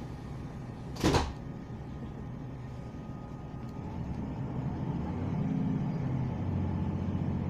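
Inside a diesel passenger train: a short, sharp noise about a second in, then the underfloor diesel engine throttles up from about four seconds in and grows louder as the train starts to pull away.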